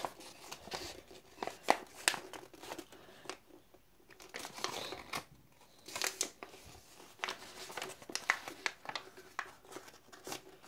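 A sheet of white paper being handled and folded by hand: faint rustling and crinkling with short crisp creasing sounds, coming and going in small scattered bursts.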